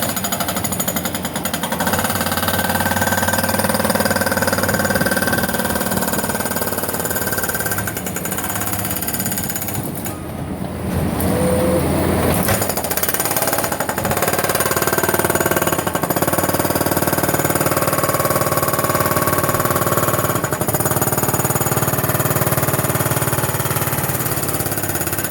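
Jackhammer pounding continuously into a structural concrete slab, breaking it up for removal, with a brief let-up about ten seconds in before it carries on.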